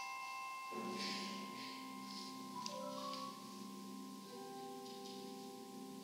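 Soft, sustained chords from a percussion ensemble of marimbas and vibraphones, the notes ringing on as long held tones, with lower notes coming in about a second in.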